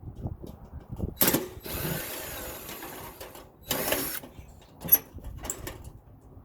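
Power drill running in short bursts as the rotisserie motor is unscrewed from the toaster oven, with metal clinks and a sharp click about five seconds in.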